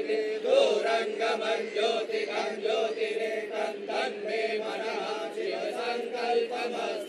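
Voices chanting Hindu ritual mantras for a puja, over a steady held tone.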